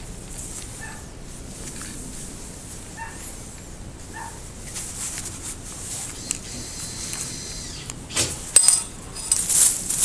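Japanese maple leaves and twigs rustling close by as the branches are handled during pruning, in irregular loud bursts from about eight seconds in. Before that, a few faint short barks of a distant dog.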